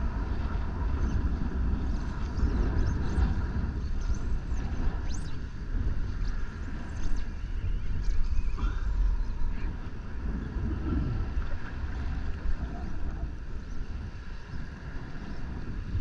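Wind buffeting a GoPro action camera's microphone: a steady low rumble over the wash of shallow sea water.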